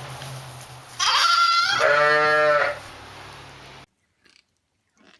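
A loud bleat from a farm animal: a single call of nearly two seconds beginning about a second in. Near the end the sound cuts off abruptly, leaving only a few faint clicks.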